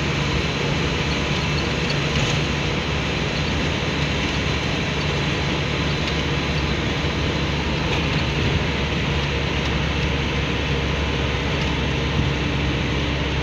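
Steady engine and road noise heard from inside a work vehicle's cab as it cruises along a highway, with a constant low hum under the tyre and wind noise.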